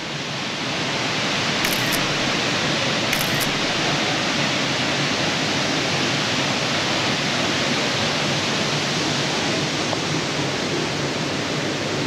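Rushing water of a rocky jungle stream and waterfall, a steady even hiss. Two brief high-pitched sounds come about two and three seconds in.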